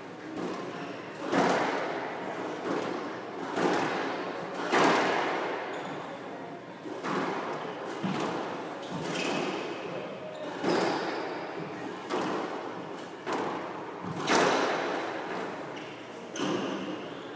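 Squash rally: the ball cracks off rackets and court walls about every one to two seconds, each hit echoing.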